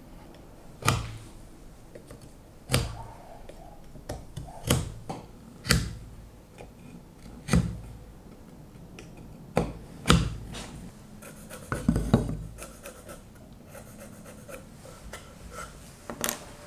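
Sharp knocks of hand-tool work on wood, about ten of them at irregular intervals a second or two apart, each dying away quickly.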